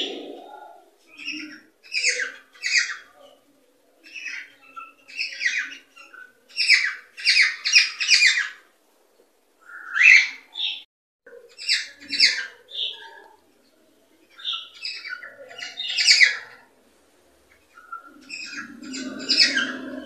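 Cockatiels chirping and warbling in bursts of quick, high notes every second or two, with short pauses between phrases.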